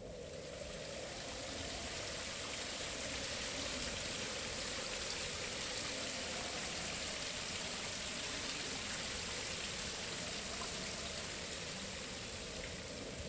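Steady rushing of running water, like a stream, fading in at the start and easing off near the end, with a soft steady tone beneath it.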